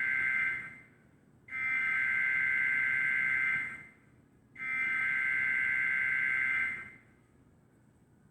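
Emergency Alert System SAME header data bursts: harsh, buzzing digital tones that switch between two pitches, carrying the coded alert type and area. One burst trails off just under a second in, and two more of about two seconds each follow, about a second apart.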